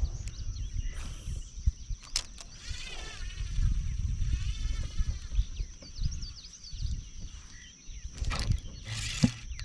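Wavering animal calls repeated for a few seconds near the middle, over a low rumble and a steady high-pitched hum, with a few sharp knocks.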